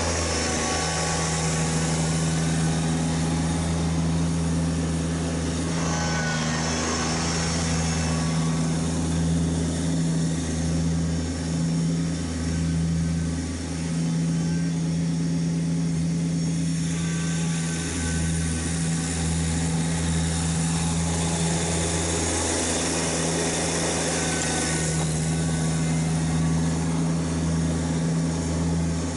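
Kubota BX1870 compact tractor's three-cylinder diesel engine running steadily as it plows snow, with small swells and dips in speed.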